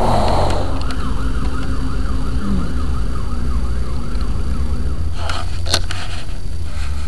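Emergency vehicle siren in a fast up-and-down yelp, fading out about two-thirds of the way through, over a steady low rumble of vehicle and road noise. A few short knocks come near the end.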